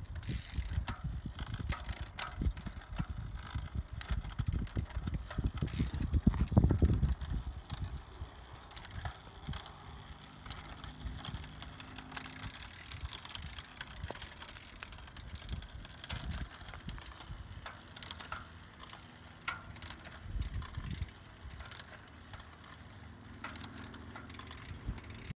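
Road bike drivetrain turned by hand: chain running over the rear cassette and derailleur pulleys with irregular clicking and ticking, as a bent chain link catches at the derailleur pulley. A low rumble is loudest in the first several seconds.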